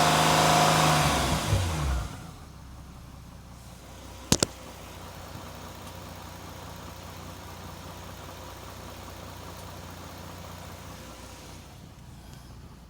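2011 Hyundai Genesis 3.8-litre V6 engine revved, then dropping back to idle about two seconds in and idling steadily. Two sharp clicks come a little after four seconds. The owner cannot place an engine knock or rattle.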